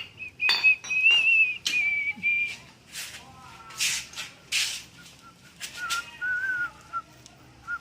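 Whistling: a few held, wavering high notes in the first two and a half seconds, then a lower wavering tune from about five and a half seconds on. Several short bursts of hiss come in between.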